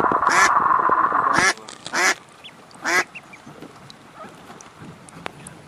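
Ducks quacking: a dense, loud run of quacks that cuts off abruptly about a second and a half in, then two single harsh quacks about a second apart.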